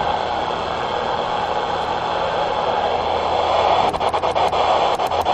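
CB radio receiver hissing with steady static from its speaker. Near the end comes a quick run of about eight sharp clicks, typical of the channel selector being turned through its detents.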